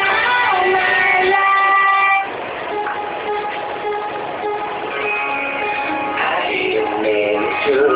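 Music: the instrumental intro of a love song, with held chords that drop in level about two seconds in.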